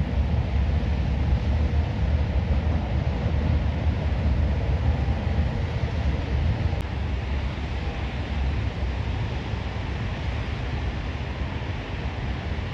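Steady rainy city street ambience: a continuous wash of rain and traffic noise over a heavy low rumble, with no separate events standing out.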